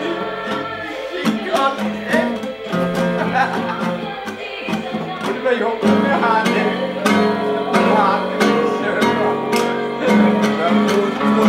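Acoustic guitar strummed in a steady rhythm, with voices singing along.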